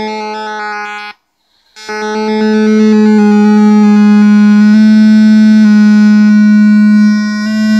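Loud electronic tone from the infrasonic sound generator's speaker: a steady, buzzy hum with many overtones. It cuts out for under a second about a second in, then comes back. Its upper overtones shift in small steps as the frequency knob is turned.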